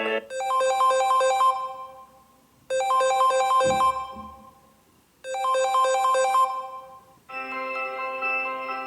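Samsung Galaxy Note 10 stock ringtones. A short, quick melody of bright notes plays three times, each fading out, and near the end a different ringtone of held notes begins.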